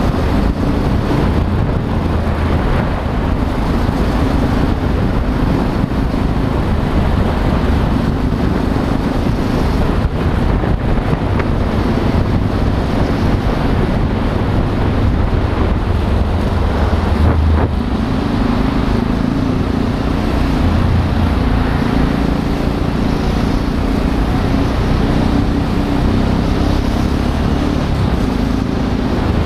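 Motorcycle engine running steadily at cruising speed, with wind rushing over the microphone and tyre and traffic noise, inside a road tunnel.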